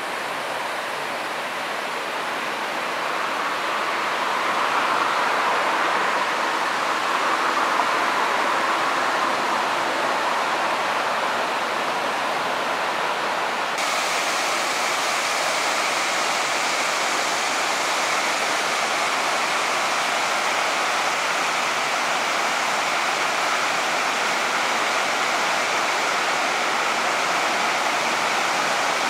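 Artificial waterfalls of the Mirage volcano cascading over rockwork into its lagoon: a steady rush of falling water, turning abruptly brighter and hissier about halfway through.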